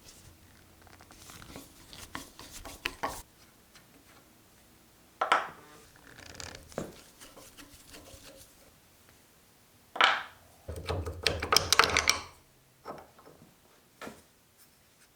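Hand-work noises at a workbench during a bench vise restoration: scattered knocks, clicks and scrapes, with a sharp knock about five seconds in, another about ten seconds in, and a dense stretch of crackling and scraping just after.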